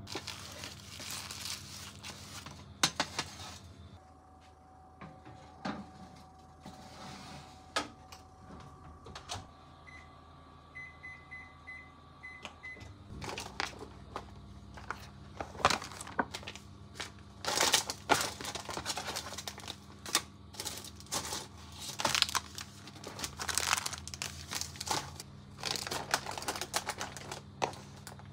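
Groceries being handled and set into a plastic storage bin: plastic-wrapped packages rustling and crinkling, with light knocks and clicks as items are put down. A short run of about six quick electronic beeps sounds a little before the middle.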